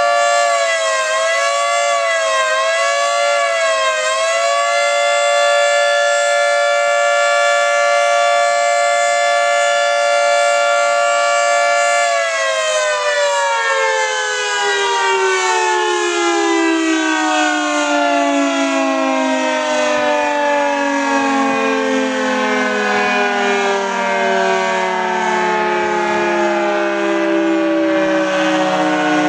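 Federal Signal 3T22 three-tone electromechanical outdoor warning siren sounding its steady alert chord, which wavers a little in pitch a few times near the start. About twelve seconds in, the power is cut and the chord winds down in one long, slow falling glide.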